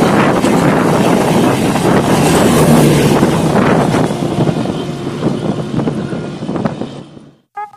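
Express train coaches rushing past at speed: a loud, steady rush of wheels on rail and wind. It fades as the last coach goes by and the train draws away, then cuts off abruptly near the end, where a few notes of music begin.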